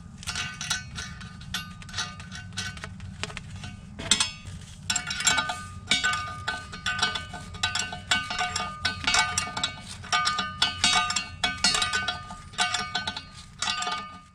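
Background music with plucked-string notes, played over a steady low hum.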